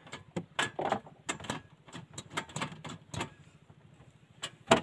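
Piezo igniter of a portable butane gas stove clicking over and over, about a dozen sharp clicks at uneven spacing, the loudest near the end, as the burner fails to catch.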